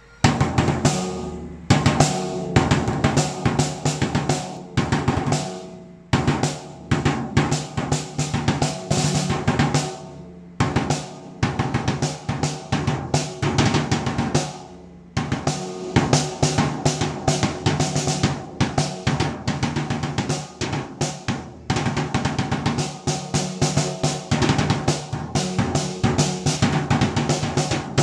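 Snare drum and rack tom played with wooden sticks: fast drum fills of rapid strokes moving between the two drums, with the heads ringing between hits. The fills come in phrases separated by brief gaps about every four to five seconds.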